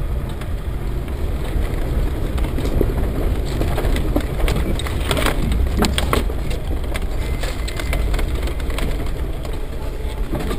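Land Rover Defender 110 driving along a rutted forest dirt track, heard from inside the cabin as a steady low engine and road rumble. From about three to seven seconds in comes a run of sharp cracks and scrapes as branches and twigs strike and snap against the body.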